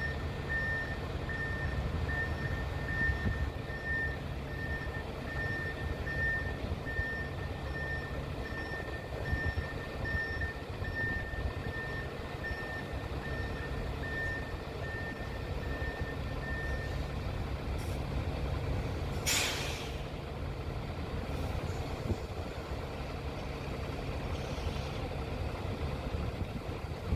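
Heavy construction vehicle's backup alarm beeping at a steady rate over the rumble of its diesel engine. The beeping stops about two-thirds of the way in, and shortly after there is one short, loud hiss of air.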